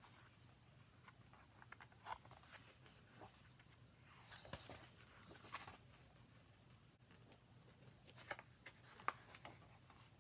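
Faint rustling and soft flaps of large glossy book pages being turned by hand, several times.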